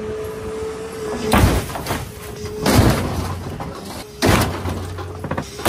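Excavator grapple slamming down on a junked sedan's roof again and again, crushing it: three loud crunches of metal and glass about a second and a half apart. Between the hits the machine holds a steady hum.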